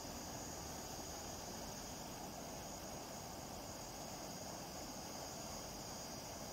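Water pouring steadily over a concrete canal weir, with a high, steady insect chorus of crickets or cicadas over it.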